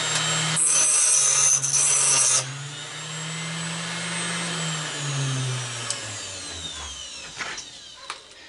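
A small Harbor Freight 3-inch variable-speed electric grinder runs at a high whine and sounds mean as it winds up. From about half a second to two and a half seconds in, it grinds against a regulator housing with a loud harsh hiss, cutting a test spot to check the metal. It then runs free and winds down, the whine falling away over a couple of seconds, followed by a few light clicks.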